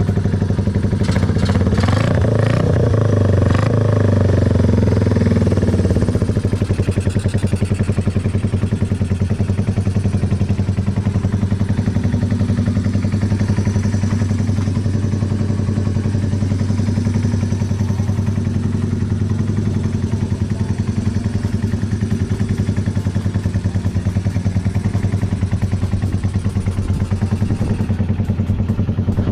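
Yamaha TW125's single-cylinder four-stroke engine running through a black Side X exhaust. It is revved in the first several seconds, then settles into a steady idle.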